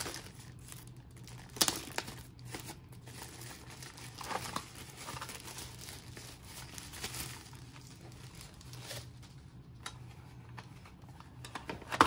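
Thin plastic wrapping crinkling and rustling as it is pulled open and off a boxed smart lock, in irregular crackles with one louder crackle about a second and a half in.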